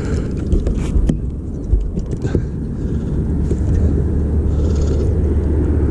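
A steady low rumble, growing stronger about halfway through, with a few light knocks.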